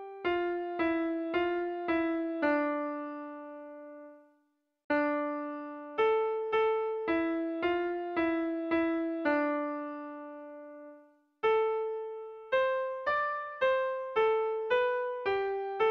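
Background music: a simple melody of single electric-piano notes played in short phrases, each note struck and fading, with full stops between phrases.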